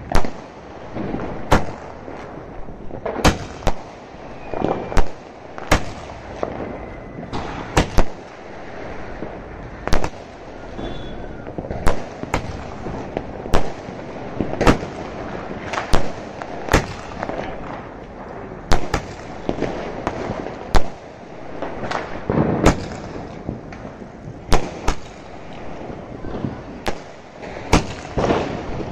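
A 'Cock Joy 30' multi-shot aerial skyshot firing its shells one after another, each ending in a sharp bang, roughly one every second or so, over a steady background noise.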